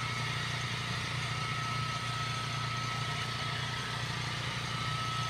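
Portable generator's engine running steadily, a constant drone with a thin steady whine above it.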